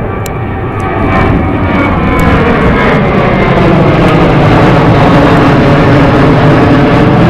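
Jet airliner passing close by, its engines getting louder over the first second or so and then staying loud, with engine tones that shift in pitch as it goes past.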